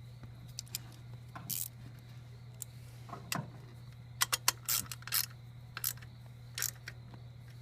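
Scattered metallic clicks and clinks of a wrench working the bolts of a scooter's radiator backing plate, bunched together about four to five seconds in, over a steady low hum.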